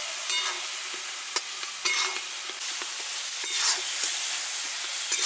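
Tomato-and-spice masala sizzling in oil in a steel kadhai, fried after the spice powders go in, while a flat steel spatula stirs it, scraping and clicking against the pan several times.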